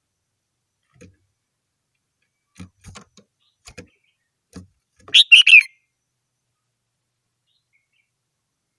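Red-whiskered bulbul giving one short, loud song phrase of three or four quick notes a little past the middle, preceded by a few faint taps.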